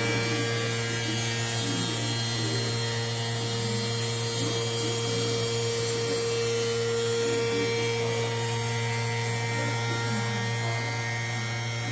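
CNC router running: a steady electric motor hum with a constant whine, and changing lower tones as the machine moves.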